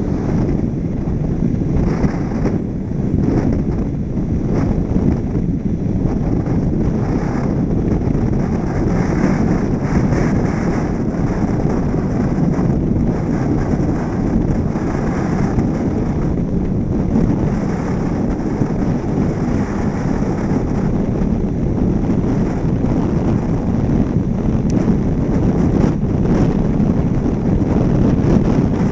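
Steady wind rushing over the microphone of a camera mounted on the roof of a moving car, mixed with the car's tyre and road noise.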